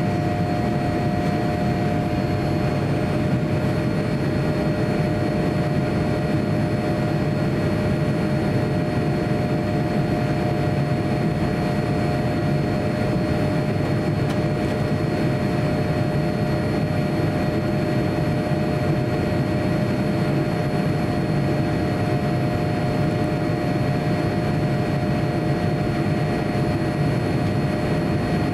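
Cabin noise inside a Boeing 787-9 airliner in flight: a steady rush of air and jet engines with a constant low hum and a few faint steady whines above it, unchanging throughout.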